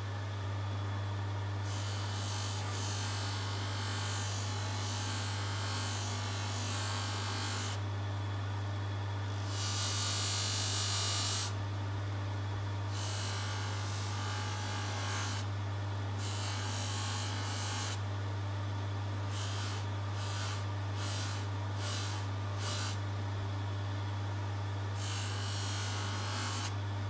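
LOSER polishing machine motor running with a steady low hum as its buffing wheel spins. A watch case side is pressed against the wheel in stretches, giving a hiss that is loudest about ten seconds in, with several short touches around twenty seconds in.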